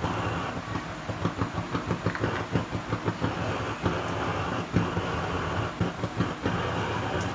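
Garlic cloves being peeled with a small knife and dropped into a plastic bowl: irregular light clicks and knocks, several a second, over a steady low hum.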